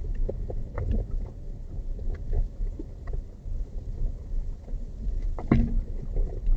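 Vehicle travelling over a rough off-road dirt track: a steady low rumble broken by scattered knocks and jolts, with one loud jolt about five and a half seconds in.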